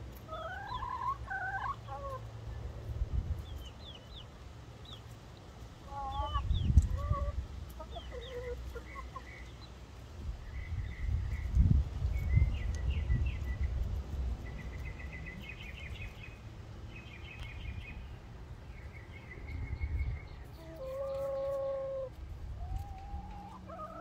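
Hens clucking and calling while feeding, with drawn-out calls near the start, about six seconds in and about twenty-one seconds in, and quicker runs of short high notes in between. Bursts of low rumble, loudest around seven and twelve seconds in, lie under the calls.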